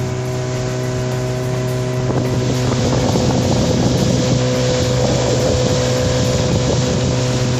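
Boat motor running steadily with the boat under way, a rougher rushing noise building about two seconds in.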